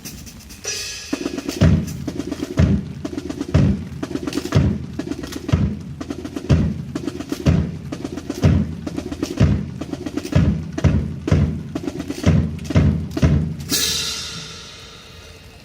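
A marching drum section plays a cadence: bass drum strokes land about once a second, with snare rolls and fills between them. Near the end the drumming stops and a bright wash of sound fades out.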